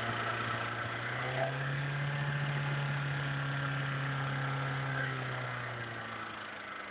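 VAZ-2103's inline four-cylinder engine running at about idle, with the knock that the owner is asking about. The engine note rises slightly about a second and a half in and eases back and gets quieter near the end.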